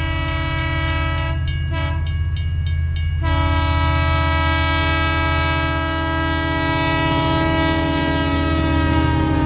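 Train horn blaring as a chord of several held tones over a steady low rumble, used as a giant creature's call. The horn stutters and cuts in and out between about one and a half and three seconds in, then sounds steadily again.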